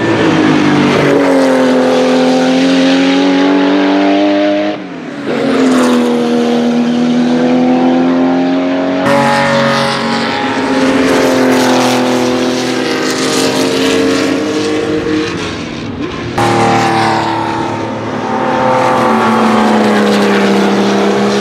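Porsche 935 K3 race cars' twin-turbo 3.2-litre flat-six engines running at speed past the trackside, a loud engine note that holds and then slowly falls with each pass. The sound jumps abruptly from one pass to the next three times.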